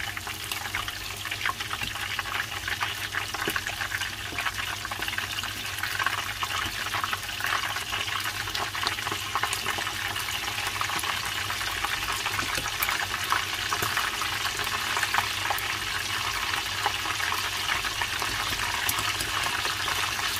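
Tempura-battered prawns and squid deep-frying in hot oil: a dense, steady sizzle full of small crackles and pops, slowly getting louder.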